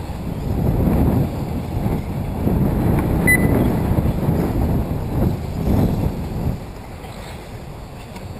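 Wind buffeting the microphone: a gusty low rumble that swells and fades, with one short electronic beep about three seconds in.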